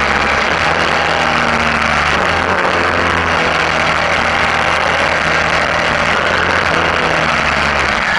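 Suzuki V-Strom's V-twin engine running under way on a gravel road, its note shifting about two seconds in, under a steady rush of wind and tyre noise.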